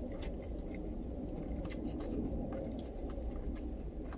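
Close-up chewing, with a wooden spoon clicking and scraping against the inside of a stainless-steel thermal lunchbox in short, scattered strokes, over a low steady hum.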